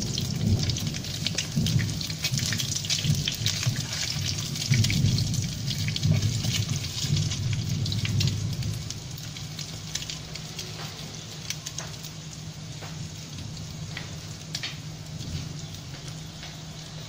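Peeled hard-boiled eggs deep-frying in very hot oil: a steady sizzle full of fine crackling pops, louder in the first half and settling lower toward the end.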